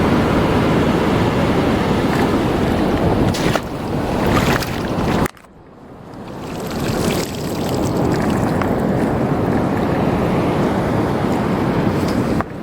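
Strong wind buffeting the microphone over waves and surf. It drops away suddenly about five seconds in and builds back up over the next couple of seconds.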